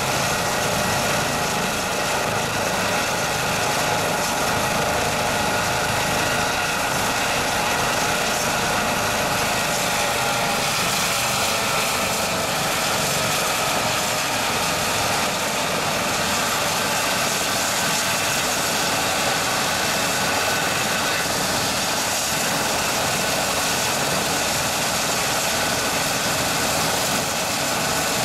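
Air ambulance helicopter running steadily, a turbine whine over a constant engine noise, its pitch shifting slightly about ten seconds in.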